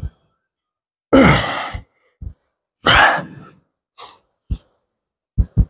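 A man breathing out hard with the pulls of a seated cable row: two forceful sighing exhalations about a second and a half apart, each loud at the start and fading, then a couple of short puffs of breath.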